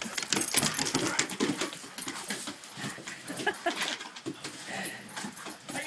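Dogs play-fighting on a wooden deck: a busy scuffle of quick scrabbling and knocking on the boards, mixed with short dog vocal sounds.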